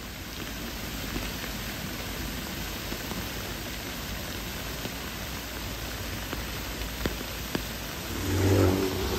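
Steady rain hissing, with a couple of sharp ticks near the end. About eight seconds in, a vehicle's engine rises and grows louder as it approaches.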